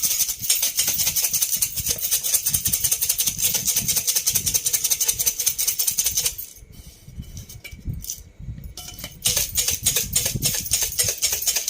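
Puffed rice, peanuts and boondi rattling inside a closed tiffin box shaken hard to mix them: a fast, continuous rattle that stops about halfway through for a few seconds, with only scattered clicks, then starts again.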